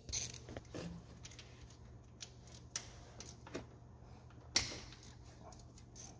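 Scattered light clicks and taps of a socket wrench being fitted and worked on the 10 mm bolts of an engine's timing chain tensioner, with one sharper click about four and a half seconds in. A low steady hum runs underneath.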